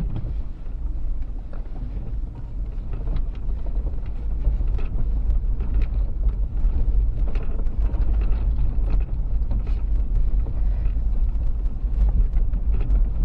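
Toyota Prado 120's V6 running low as the 4WD crawls over a rough, technical off-road track: a steady low rumble with scattered knocks and rattles throughout.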